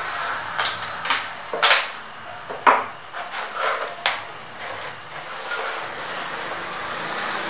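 Hands knocking and tapping against the base of a roll-up banner stand while pressing the banner onto it: a series of sharp, irregular knocks and clatters, the loudest a little before the middle, giving way to a soft rustle near the end.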